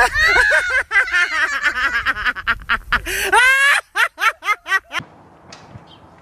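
Several people laughing hard, with a shriek rising in pitch about three and a half seconds in and a run of short loud laughs after it. At about five seconds the laughter cuts off suddenly, leaving only faint outdoor background.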